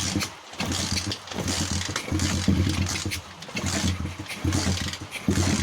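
125cc pit bike's single-cylinder engine started without the choke and running unevenly, its level rising and falling with several brief dips: it runs sluggishly, and the owner suspects an air leak at the intake manifold, which has no gasket on one side.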